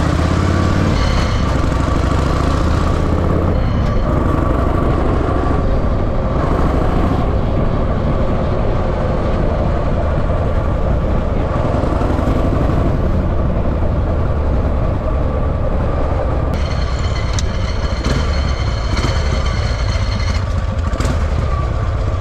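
1949 Harley-Davidson Panhead V-twin engine running, a steady low rumble.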